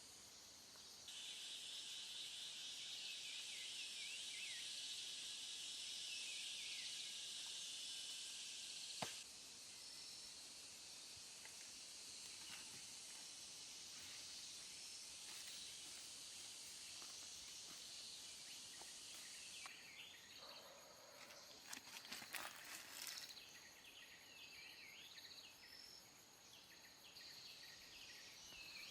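Forest insects buzzing in a steady high chorus, louder for the first several seconds and dropping off suddenly at a sharp click; short bird chirps and a brief patch of crackling about two-thirds through.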